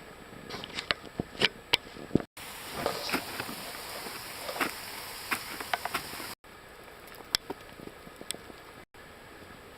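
Ice tools and crampons striking frozen waterfall ice in short, irregular sharp hits, several loud ones close together near the start and more scattered later, over a steady hiss.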